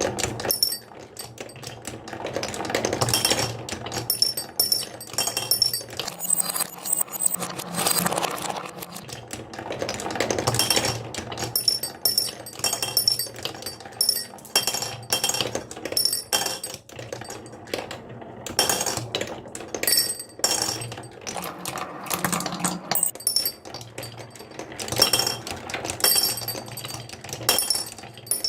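Marbles rolling down a wooden HABA marble run, with a steady stream of clicks and clinks as they knock against the track and each other.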